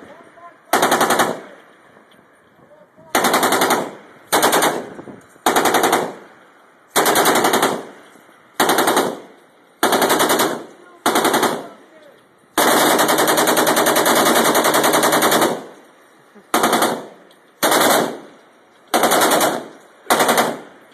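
Shipboard machine gun firing in short bursts of rapid shots, about a dozen in all, with one long burst of about three seconds near the middle.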